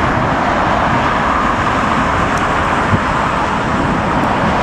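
Steady road traffic noise, with cars driving past, and one short low bump about three seconds in.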